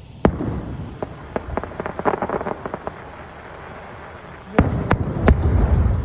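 Aerial firework shells bursting: a sharp bang, then a run of quick crackling pops, then three loud bangs in quick succession near the end, followed by a low lingering rumble.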